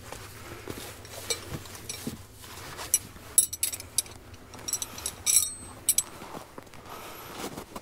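Metal tent stakes clinking against each other as they are handled and set down: a few scattered clinks, then two quick clusters of sharp, ringing clinks in the middle.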